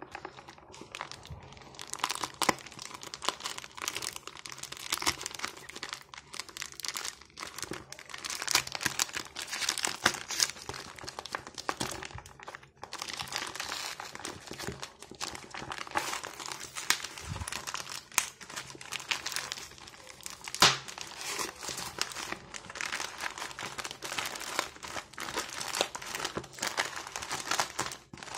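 Plastic postal mailer bag crinkling and tearing as it is opened by hand, with dense irregular crackles and sharper rips throughout.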